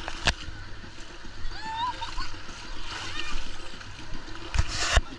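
Sea water splashing and sloshing close to the microphone, with a few sharp knocks, the loudest two near the end. Faint voices can be heard in the background.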